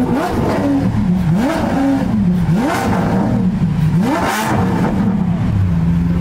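A car engine being revved hard in about four quick blips, each pitch rising sharply and falling back, the last and biggest about four seconds in. It then settles to a steady idle near the end.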